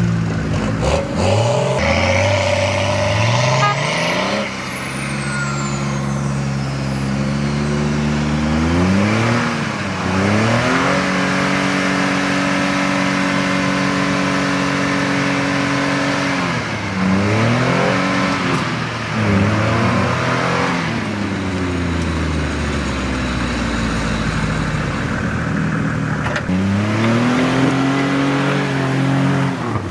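Jeep Wrangler's engine working under load through mud, its revs held steady for stretches and then dropping and surging again several times.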